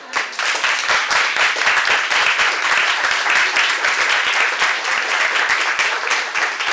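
A crowd breaking into applause: many hands clapping at once, starting suddenly and keeping up a steady, dense patter.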